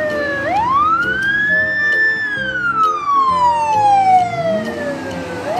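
Police car siren on a slow wail. The tone rises over about a second and a half, holds briefly at the top, then falls slowly for about three seconds and starts climbing again near the end. Soft background music plays underneath.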